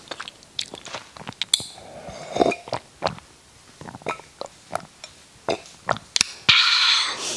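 Close-miked sips and swallows of water from a glass, with small wet mouth clicks, ending in a loud breathy exhale after the glass is lowered.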